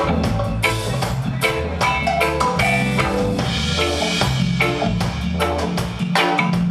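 Live band playing an instrumental passage: drum kit keeping a steady beat under electric bass and electric guitar, with a run of short, bright, mallet-like melody notes on top.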